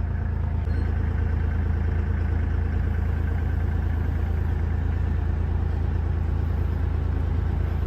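A vehicle engine running steadily at low revs with a deep, even hum.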